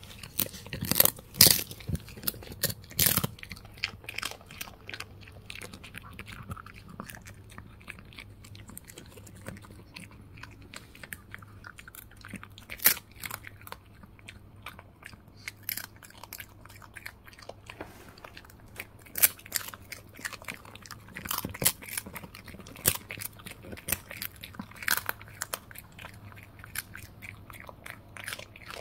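A Shih Tzu biting and chewing a dried pollock treat: irregular crunchy bites and clicks of teeth, a quick loud run of them in the first few seconds, then scattered chews with pauses.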